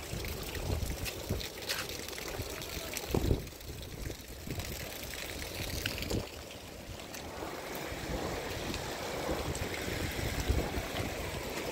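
Wind buffeting the microphone over steady heavy rain and rainwater running across the ground, with a loud low thump about three seconds in.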